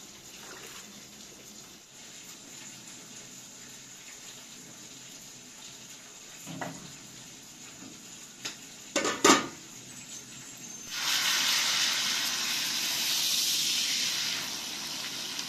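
Salmon frying in hot oil in a wide pan: a loud, steady sizzle through the last third. Before it come a knock and a quick cluster of sharp metal clatters, the loudest sounds, as an aluminium pot lid is handled.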